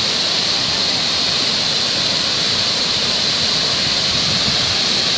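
Waterfall pouring into a plunge pool: a steady, unbroken rushing of falling water.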